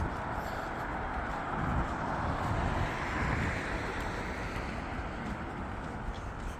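A car passing on the road, its tyre and engine noise swelling about halfway through and fading, over a steady background of city traffic noise.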